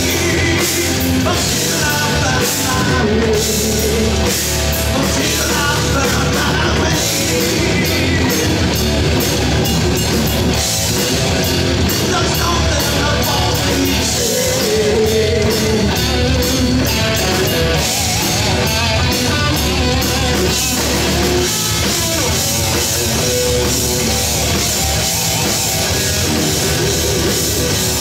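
Live rock band playing loudly on electric guitar and drum kit.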